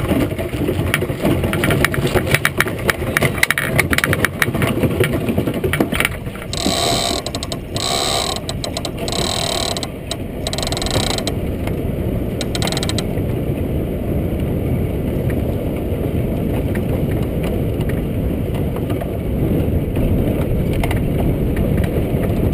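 Iceboat runners sliding over lake ice, a steady rumbling scrape with the ice drumming beneath them; dense clicking in the first few seconds and a stretch of brighter hissing bursts midway.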